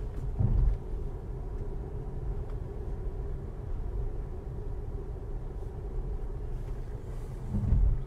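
Steady road and tyre noise of a Tesla Model S Performance cruising at about 40 mph, with no engine sound from the electric drive and a faint steady hum. Two brief low thumps, about half a second in and again near the end.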